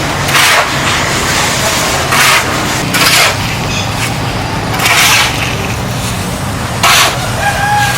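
Five short rough scraping strokes, one every second or two, over a steady low engine hum.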